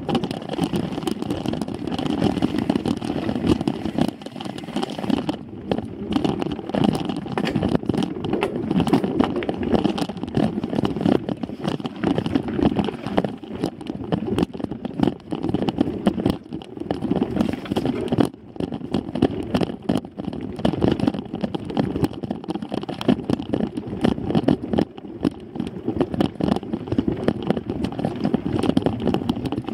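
Mountain bike ridden over a rough dirt singletrack, heard from a bike-mounted camera: a constant rough rumble from the tyres and frame, broken by dense irregular rattles and knocks over the bumps.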